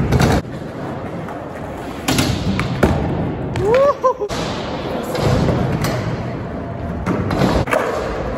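Skateboard sounds on concrete: a loud clack of the board on a ledge at the start, then wheels rolling with several more sharp clacks and thuds. A brief rising-then-falling pitched squeak comes about four seconds in.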